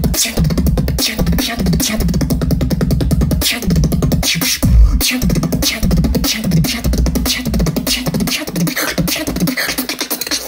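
Solo beatbox routine: a fast, steady rhythm of mouth-made drum hits, clicks and hi-hat sounds over a deep, pulsing vocal bass.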